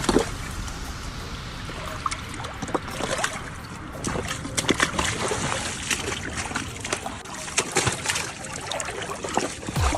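Shallow seawater splashing and trickling among shoreline rocks, with many short sharp clicks and knocks scattered throughout.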